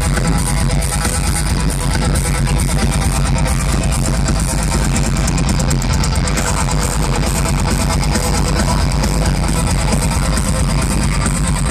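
Melodic death metal band playing live at full volume: distorted guitars, bass and fast, driving drums in a dense, steady wall of sound. Recorded from the crowd, with a muddy, distorted sound.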